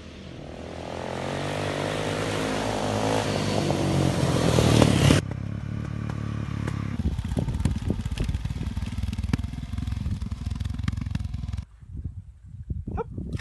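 Trail motorcycle engine rising in pitch and getting louder as it accelerates. About five seconds in it cuts to a rougher low rumble with stones clattering under the tyres on a gravel track. The engine sound drops away near the end.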